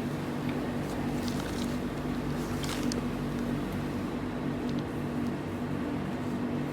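Steady low mechanical hum made of several held tones, with a few faint light clicks.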